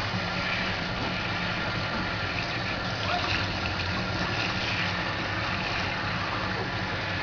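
Handheld shower head spraying water steadily onto a puppy's fur and the bathtub floor, with a low steady hum underneath.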